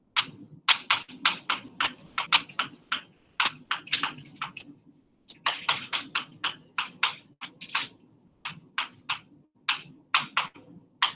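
Marker writing on a board: quick, irregular short tapping and scraping strokes as numbers and symbols are written, over a low steady hum.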